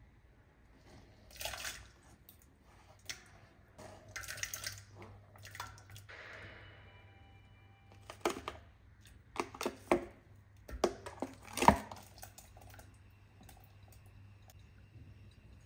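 Chopped vegetables and raw beef balls dropped by hand into a stainless-steel pot of water: an uneven series of splashes and plops with several sharp knocks, busiest and loudest in the second half.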